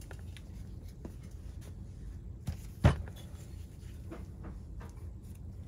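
Metal chainsaw parts and tools being handled on a workbench: a few light clicks and one sharp knock just under three seconds in, as the split crankcase halves and case-splitter are moved and set down.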